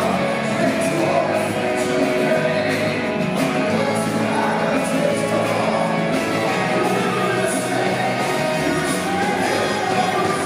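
Live pop-rock band playing with a steady drum beat while a male lead singer sings into a handheld microphone, heard through the theatre's sound system.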